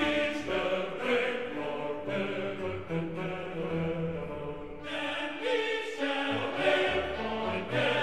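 Slow background music with sustained, choir-like singing: long held notes that change in steps about every second.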